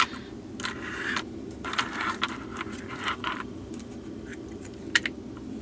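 Small plastic bags of diamond-painting drills rustling and crinkling in three short bursts as they are handled and opened, with a sharp tick near the end.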